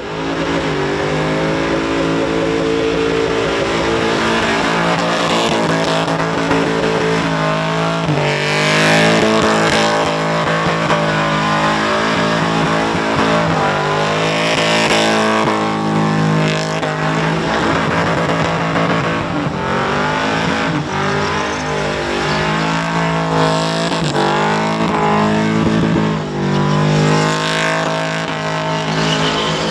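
Supercharged Holden Commodore ute doing a burnout: the engine is held at high revs while the rear tyres spin and smoke, with music over it.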